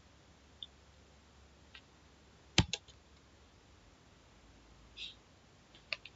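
A few scattered computer keyboard keystrokes: two loud key clicks close together about two and a half seconds in, with fainter clicks before and after.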